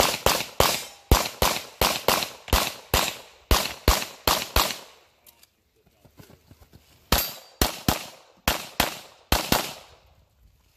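Handgun fired in quick strings at a practical-shooting stage: about a dozen sharp shots at roughly three a second, a pause of about two seconds as the shooter moves, then a second string of about eight shots.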